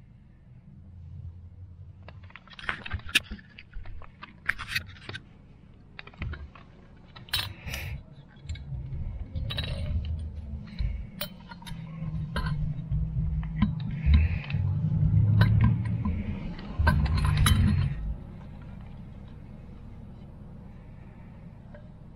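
Scattered metal clinks, clicks and scrapes as the top cover of a Holley 94 carburetor, with its floats hanging from it, is handled and set against the carburetor body on a workbench, with some low bumping in the middle stretch.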